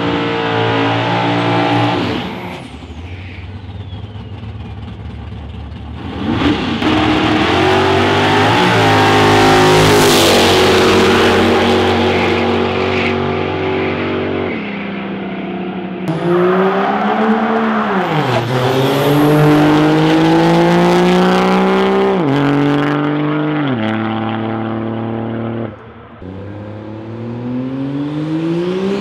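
Diesel drag-racing pickup trucks running hard down the strip, the engine pitch climbing in long pulls and dropping back at the gear changes, with a high whistle that rises and falls twice. The sound cuts abruptly between passes several times.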